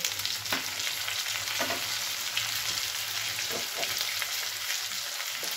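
Potato wedges, onion and freshly added tomato pieces frying in mustard oil in a kadai: a steady sizzling hiss, with a few sharp pops scattered through it.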